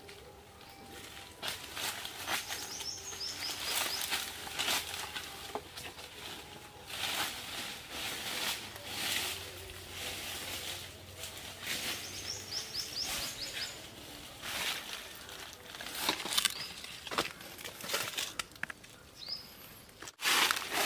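Dry leaves and twigs rustling and crackling in uneven bursts as people move and pick through undergrowth. A bird calls twice in quick runs of short falling chirps, and once more near the end.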